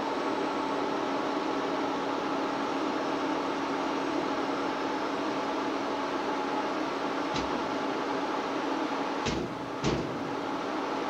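Steady machine hum with a constant tone from the powered-up Adept Cobra 600 SCARA robot workcell as the arm moves toward its ready position after calibration. Three sharp clicks come in the last few seconds, the last two close together.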